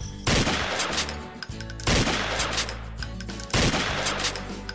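Shot sound effect of an animated CO2 gas pistol firing, repeated three times about a second and a half apart. Each is a sudden crack that fades over about half a second, with steady low tones underneath.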